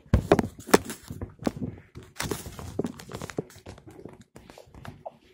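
Handling noise: a quick run of irregular knocks and clicks, loudest in the first second, thinning to fainter taps after about three and a half seconds.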